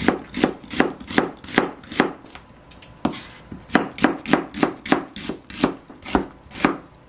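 Chef's knife slicing an onion into thin strips on a plastic cutting board: a steady run of knocks, about two to three a second, with a short pause about two and a half seconds in before the cutting resumes.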